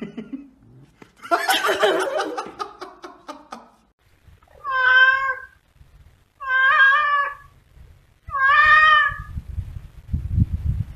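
Domestic cat meowing: three long, drawn-out meows, each about a second, after a short burst of noise early on. Low thumping follows near the end.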